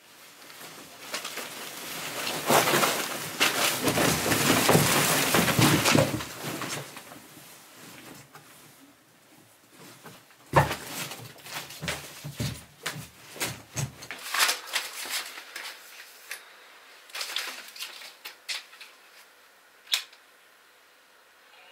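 Heaps of paper rustling and crashing loudly for the first six seconds or so, then a run of sharp knocks and thumps from about ten to fourteen seconds in as a foot kicks and stamps among cardboard boxes and loose paper, tailing off into scattered rustles and clicks.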